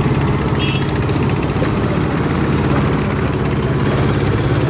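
A boat's engine running steadily with a fast, even pulse.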